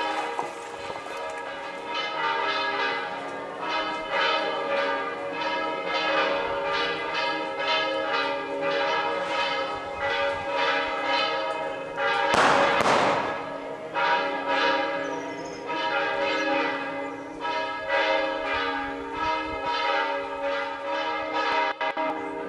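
Church bells pealing, struck over and over about twice a second so that their tones ring on and overlap. About twelve seconds in, a brief loud rush of noise rises over the bells for under a second.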